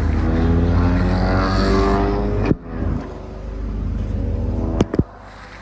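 A vehicle engine accelerating, its pitch climbing steadily, cut off suddenly about two and a half seconds in. After that it is quieter, with a short sharp click near the end.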